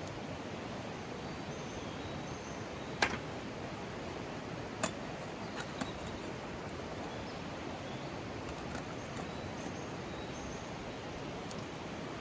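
Mountain stream rushing steadily, with a few sharp snaps or clicks, the loudest about three seconds in, and faint short high calls now and then.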